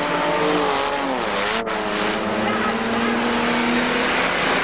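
Several stock car engines running hard, their pitches rising and falling as the cars accelerate and ease off, over a steady rush of noise. The sound cuts out briefly about a second and a half in.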